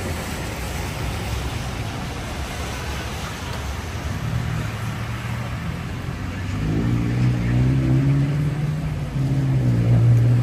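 Steady hiss of rain and city street noise, with a low engine hum from a nearby motor vehicle coming in about four seconds in and growing louder from about six seconds on.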